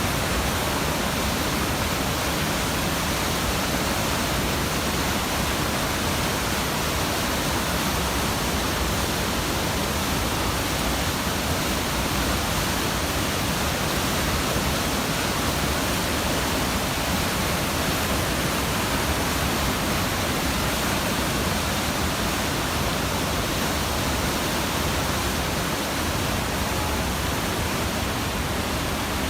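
Steady rushing wind and road noise inside a moving car, even and unbroken.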